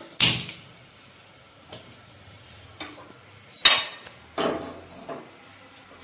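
A gas stove burner lit with a hand-held lighter, with a sharp click just after the start, then a metal kadai (wok) clattering as it is set on the burner grate and a wooden spatula knocks in it, the loudest knock about two thirds of the way through.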